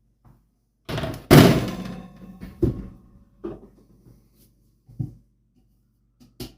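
Kitchen clatter of cookware being handled: a brief scrape, a loud clunk with a short ring about a second in, then a few lighter knocks.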